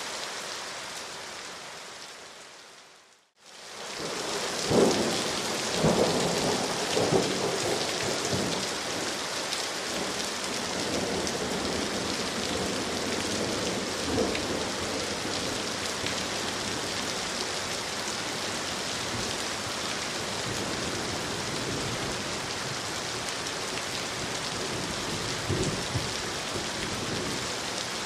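Steady heavy rain. It fades out to silence about three seconds in and fades straight back in, as at a loop join. A few short, louder low thumps come in the first seconds after it returns and once near the end.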